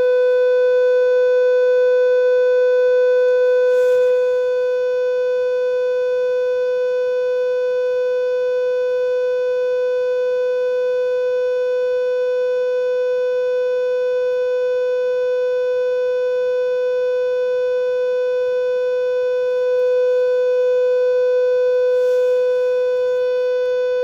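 Steady 500 Hz test tone with overtones, played by a phone speaker-cleaner app to clean the phone's speaker. It dips slightly in level about four seconds in and swells briefly near the end.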